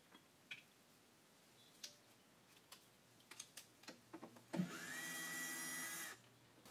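Scattered light clicks and knocks of tools on metal parts, then a handheld power tool's electric motor whines up and runs steadily for about a second and a half before stopping.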